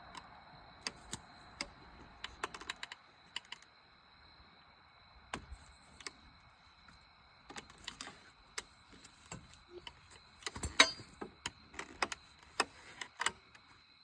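Irregular clicks, knocks and pops of tree-saddle climbing gear (carbon climbing sticks, straps and hardware) as a hunter climbs down a telephone pole; the sticks make a little more popping on a pole than on a tree. One knock about three quarters of the way through is the loudest.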